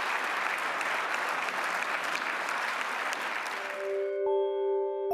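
Audience applauding, fading out quickly about four seconds in. As it goes, an outro tune of ringing, chime-like notes begins, with a new note struck about every second.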